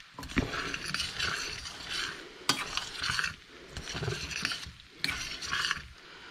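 Stirring chopped Spam into macaroni and vegetables in a stainless steel saucepan: repeated scraping strokes through the food, with a couple of sharp clinks against the pot.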